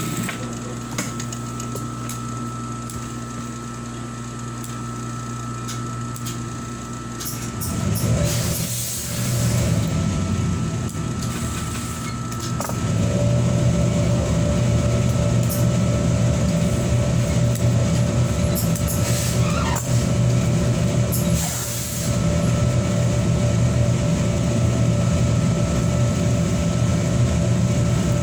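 Electric sewing machine running with a steady motor hum. It picks up about a third of the way in and runs louder and steadily from about halfway.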